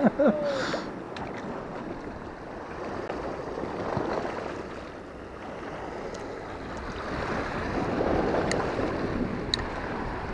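Sea waves washing and breaking over a low rocky shore, surging louder about four seconds in and again near eight, with wind buffeting the microphone.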